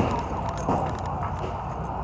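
Street background noise: a steady low traffic rumble with faint, distant voices.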